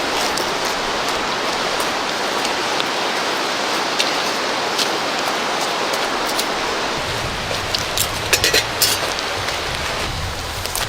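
Steady rushing of a river, with a few sharp clicks and pops scattered through it, clustered about eight to nine seconds in, and a low rumble in the last few seconds.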